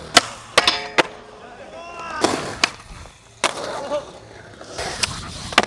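Skateboards on a concrete skatepark: wheels rolling on the concrete, with a series of sharp clacks as boards hit the ground.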